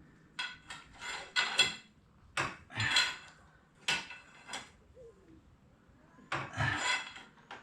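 Metal hand tools clanking and scraping in short, irregular bursts while a stuck fastener on a motorcycle is worked loose; the longest scrape comes near the end.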